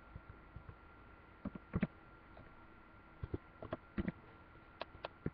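Computer keyboard being typed on: short, sharp key clicks in small irregular clusters, a few keystrokes at a time.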